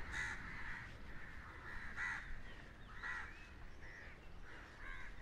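Crows cawing repeatedly, harsh calls about once a second, over a low rumble.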